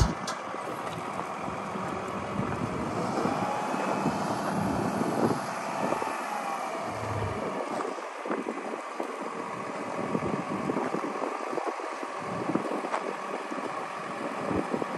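Digger derrick truck's 6.7L Cummins diesel running to drive the Altec boom's hydraulics as the boom is raised, with a faint whine that rises and falls a few seconds in. Wind buffets the microphone.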